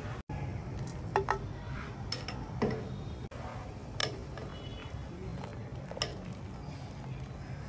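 Scattered sharp clinks and knocks of kitchen utensils and dishes, about six in all, over a steady low hum.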